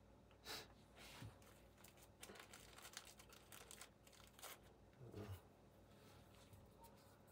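Faint handling noise: paper towel rustling and a few light clicks of small AR-15 bolt parts being picked up and set down.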